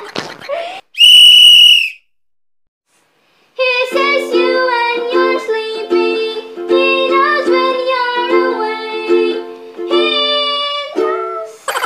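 A short laugh, then a loud whistle held at one steady pitch for about a second. After a brief silence, a girl sings while strumming chords on a soprano ukulele.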